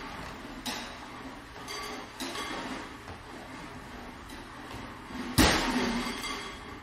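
Solo percussion: a few separate strikes that ring on over a sustained ringing background, with lighter hits under a second in and around two seconds, and the loudest strike about five and a half seconds in.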